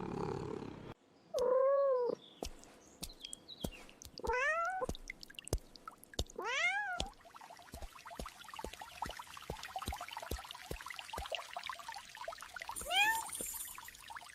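A cat meowing four times, short arching meows spread out with long gaps between them. A run of faint, irregular clicks fills the pauses.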